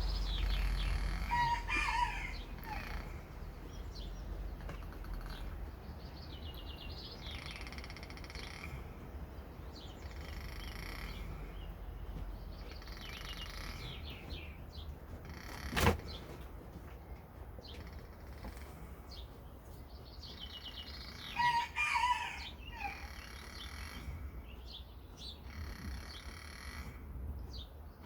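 A rooster crowing twice, about twenty seconds apart, with small birds chirping faintly throughout and a single sharp knock a little past halfway.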